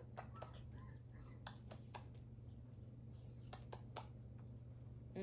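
Faint, irregular clicks and taps, about nine in all and loosely grouped, over a steady low hum.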